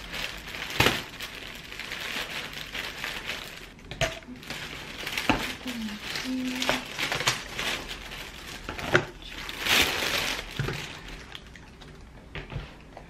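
Thin plastic delivery bag rustling and crinkling as it is untied and pulled open, with plastic takeout containers knocking and being set down on a table several times.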